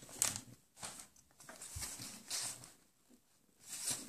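Paper sewing-pattern envelopes being flicked through one after another in a storage box: irregular soft papery swishes and rustles.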